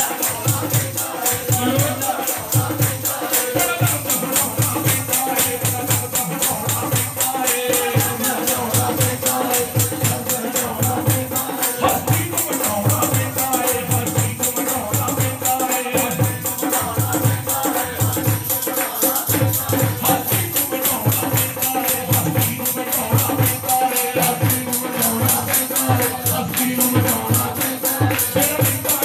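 Devotional song sung into microphones over a steady beat of drum strokes, about two a second, with continuous jingling, rattling percussion and hand-clapping.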